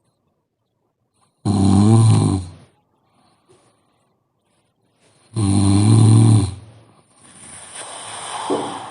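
A woman snoring in her sleep: two loud snores on the in-breath, each about a second long and about four seconds apart, with a softer, longer breath after the second.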